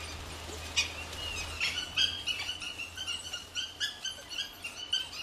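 Dhole pups giving many short, high-pitched squeaks and whines, several a second, as they beg adults for food.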